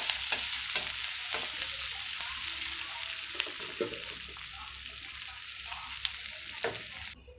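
Sliced onions with green chilli and fennel seeds sizzling in hot oil in a kadai, stirred with a metal spatula that scrapes and taps against the pan: onions being fried until they change colour. The sizzle cuts off suddenly near the end.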